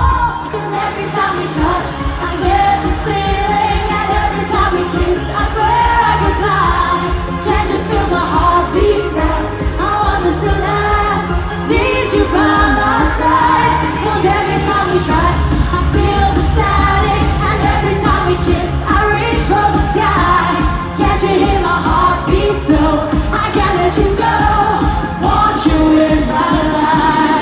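Live eurodance pop music, with singing over synths and a pounding bass beat. The bass drops out briefly near the start and again about halfway through, then comes back in.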